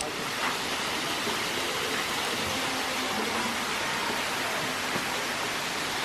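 Small waterfall and cascades over rock rushing steadily: an even, unbroken hiss of running water.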